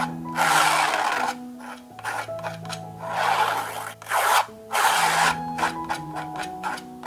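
Metal painting knife scraping and spreading thick acrylic paint across a textured canvas. It makes several longer strokes, then a run of short, quick strokes in the last couple of seconds.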